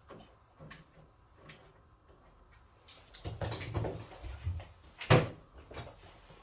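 Knocks and rattles of things being handled: a few light clicks, a busier cluster of rattling about three seconds in, then one sharp knock a little after five seconds.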